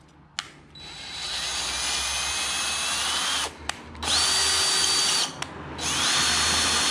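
DeWalt cordless drill spinning a thread tap through a bolt hole to chase its threads. The motor whine runs three times with short stops between; the first run speeds up slowly.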